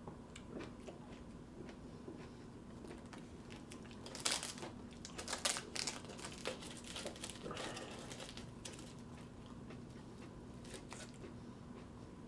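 Dry papery tomatillo husk crinkling and tearing as it is peeled apart by hand, with a few loud crackles about four to six seconds in and lighter rustling after.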